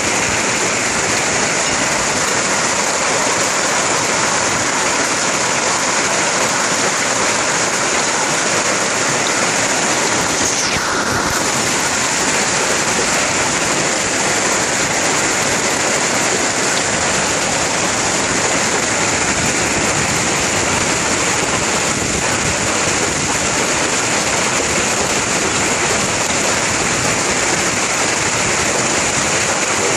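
Hailstorm with heavy rain pelting a paved street and square: a loud, dense, steady hiss of falling hailstones and rain.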